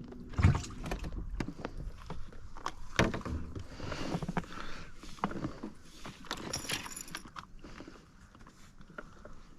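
Scattered knocks, clicks and rattles from fishing gear being handled in a boat, with a louder thump about half a second in and another about three seconds in.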